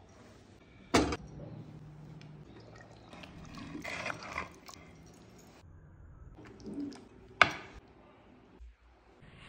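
Clay-pot cooking sounds: a ladle stirring thick mutton curry in an earthenware pot, with wet, sloshing sounds around the middle. A sharp knock about a second in and a louder sharp click near the end, from utensils against the clay.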